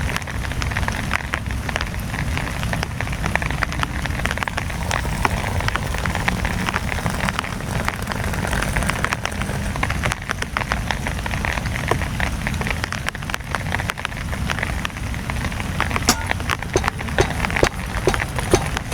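Heavy rain on a tent: a dense, steady patter of drops hitting the fabric over a deep rumble. A few sharper, louder drop hits come near the end.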